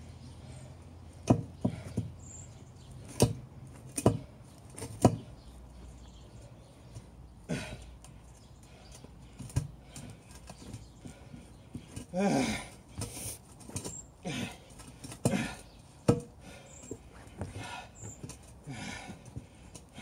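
Irregular sharp knocks and thuds of boots stamping and shifting on a car tyre, forcing its bead down over the wheel rim. From about twelve seconds in there are a few longer sounds that waver in pitch.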